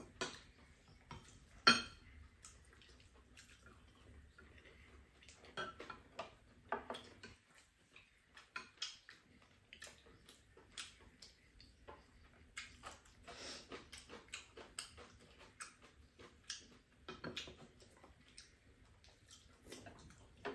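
Scattered light clicks and scrapes of spoons and chopsticks against ceramic rice bowls during a meal, the sharpest click about two seconds in.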